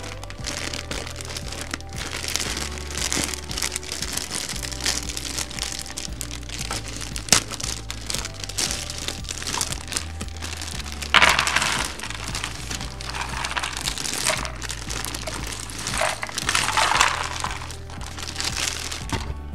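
Plastic bag of cardboard jigsaw pieces crinkling and rustling as the pieces are tipped out into the box lid, with scattered clicks. There are two louder bursts of crinkling in the second half. Background music plays underneath.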